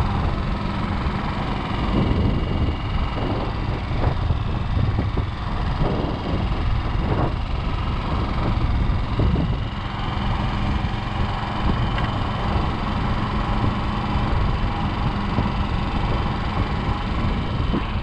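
Motorcycle engine running steadily while riding along a dirt road.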